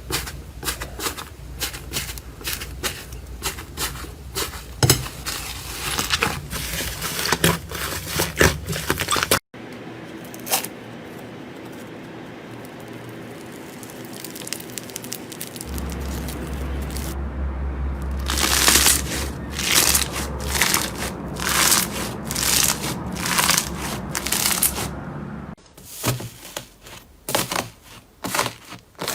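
Slime being squeezed and pressed by hand, giving dense runs of crisp crackles, clicks and pops. The sound changes abruptly twice, about a third of the way in and near the end; in between there is a quieter, steadier stretch before the crackling picks up again.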